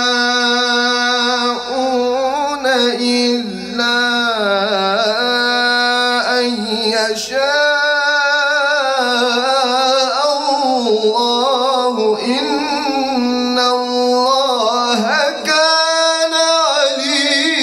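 A man reciting the Qur'an in melodic tajwid style, drawing each phrase out at length with wavering, ornamented turns of pitch.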